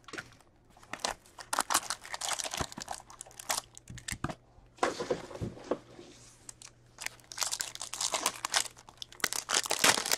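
Cardboard card box handled and opened, then a foil-wrapped Upper Deck Ingrained hockey card pack torn open, in a run of crinkling, tearing bursts that are loudest near the end.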